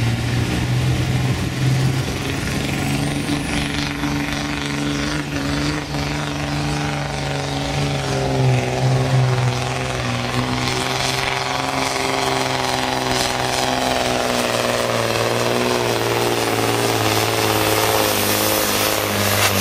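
Diesel engine of a supersport pulling truck running hard under load, a loud steady drone whose pitch wavers slightly through the second half.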